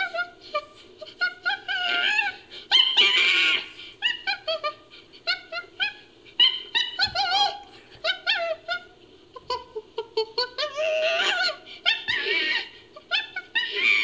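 Chimpanzee vocalizations edited into a creature sound effect: a rapid string of short, high calls that bend up and down in pitch, broken by louder shrieks about three seconds in and again around eleven and twelve seconds.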